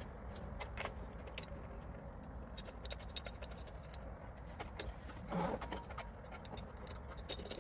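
Scattered light metallic clicks and clinks of hand tools and hardware at a motorcycle's handlebar riser clamp, over a low steady hum, with one short, louder muffled sound about five and a half seconds in.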